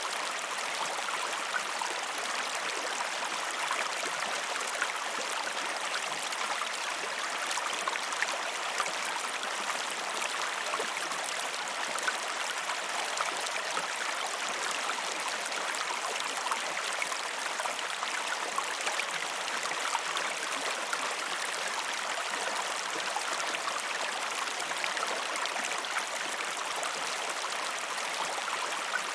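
River water flowing over rocks: a steady, even rushing with small splashes and trickles, without pause or change.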